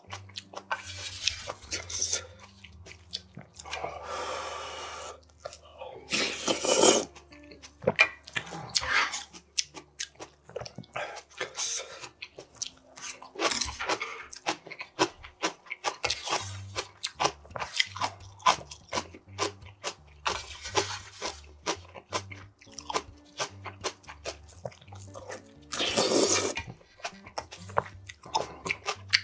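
Close-miked eating sounds: a man slurping ramen noodles and broth and chewing crunchy kimchi, with many short wet smacks and crunches and a few longer, louder slurps, one near the end.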